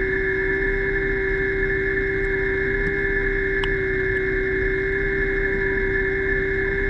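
Diver propulsion vehicle (underwater scooter) motor running at a constant speed underwater: a steady whine with a low rumble beneath it. One faint click comes about halfway through.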